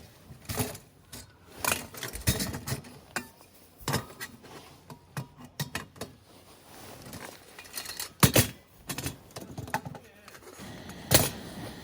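Irregular metallic clinks and knocks of camping cookware being handled, with two sharper knocks near the end.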